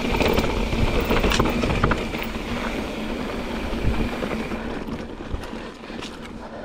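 Mountain bike rolling along a dry dirt singletrack: tyres crunching over the trail, with knocks and rattles from the bike over bumps and wind rumbling on the camera microphone. Busier and louder in the first couple of seconds, easing off toward the end.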